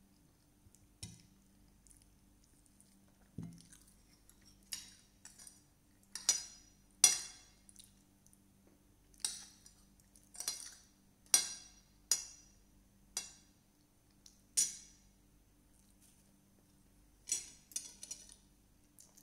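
Metal fork and spoon clinking against a plate: about a dozen sharp, ringing clinks at irregular intervals, the loudest about seven seconds in, with one dull low thud about three and a half seconds in.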